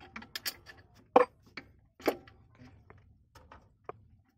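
Hand tools clicking and knocking on metal while the clutch booster (clutch servo) of a Nissan Diesel truck is unbolted: irregular sharp clicks, with two louder knocks about one and two seconds in.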